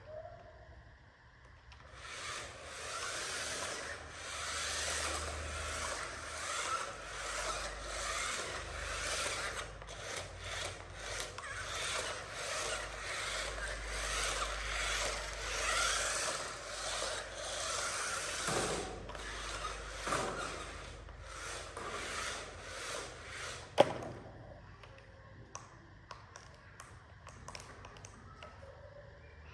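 Uneven scraping and rubbing noise that starts about two seconds in and goes on for some twenty seconds. It ends with a sharp click.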